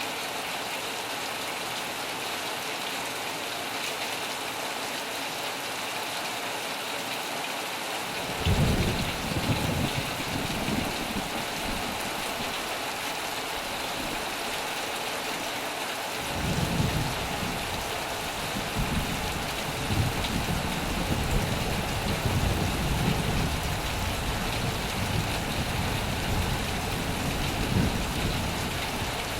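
Heavy rain on a metal roof, a steady hiss throughout. Thunder rumbles in about a third of the way through and fades after a few seconds. A second, longer rumble rolls from a little past the middle until just before the end.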